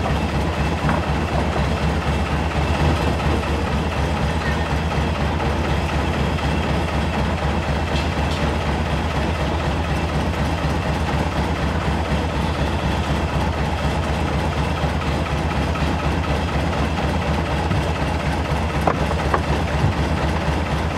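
Engine of a long boat running steadily under way, a constant low drone.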